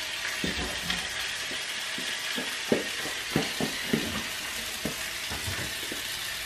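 Steak and sauce sizzling steadily in a frying pan, with scattered light knocks and clicks of things being handled in the kitchen.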